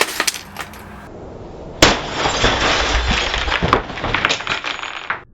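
Sledgehammer blows on a Canon printer, shattering the glass panel in its top: a sharp hit at the start, then a heavy hit about two seconds in followed by some three seconds of breaking and clinking glass and cracking plastic that stops abruptly near the end.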